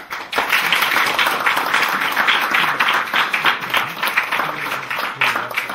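Audience applauding: dense clapping that breaks out all at once and keeps going steadily.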